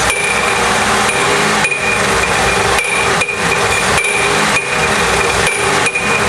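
GM 3.8-litre V6 engine running with a loud, continuous metallic rattling and knocking from the front of the engine. The noise comes from a failed harmonic balancer: its outer ring has come loose from the rubber bond to the crankshaft hub.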